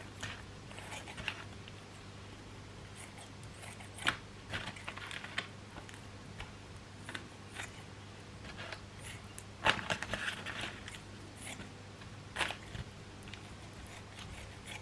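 Scattered light clicks, taps and short scrapes of hands handling kitchen utensils and food during cooking, with the sharpest knocks about four seconds in and again near ten seconds, over a low steady hum.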